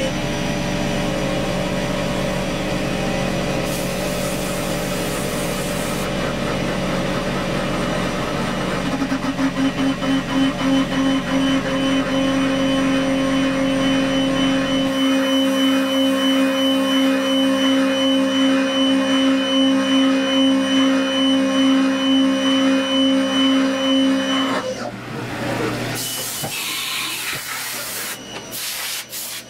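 HAAS TM-1 CNC mill's spindle running and its end mill cutting aluminium, a steady whine with held tones. From about a third of the way in, the cut pulses evenly, a little under twice a second. Near the end the whine stops and a rougher rushing noise follows.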